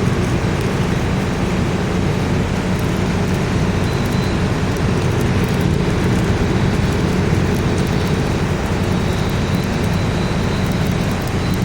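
LG air conditioner running: a steady rush of fan air over a constant low electrical hum from its motor and compressor.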